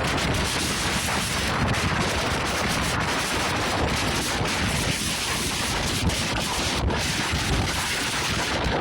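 Strong gusty wind blowing hard on the microphone, a loud continuous buffeting noise heaviest in the low rumble.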